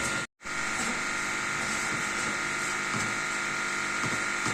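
Steady machine hum with a high whine, broken by a brief dropout just after the start, with two faint knocks later on.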